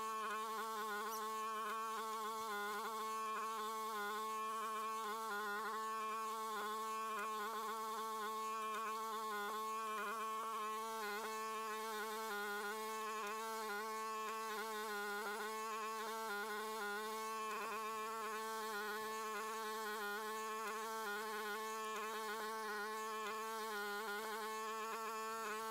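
Shandong Nuoman NM-E10 mini excavator's engine running at full throttle while digging a trench, a steady drone at one pitch that wavers slightly and continually as the load changes.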